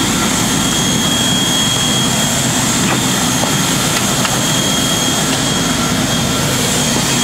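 Steady, loud rush of jet aircraft turbine noise, with a thin high-pitched whine on top.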